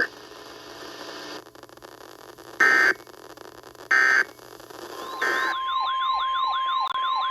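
Weather radio hiss, then three short squawks of EAS/SAME digital data, the end-of-message code. About five seconds in, the steady 1050 Hz NOAA Weather Radio warning tone starts, with a warbling siren-like alert tone sweeping up and down over it.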